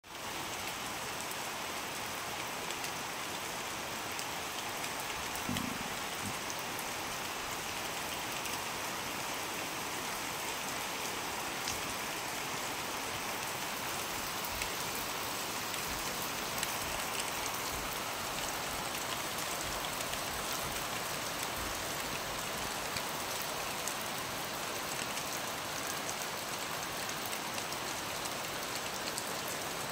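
Heavy monsoon rain falling steadily, a dense even hiss of drops with scattered individual drop ticks.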